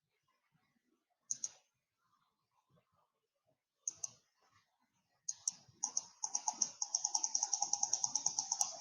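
Computer mouse clicks: three pairs of quick clicks a few seconds apart, then a fast, even run of about eight clicks a second for the last three seconds.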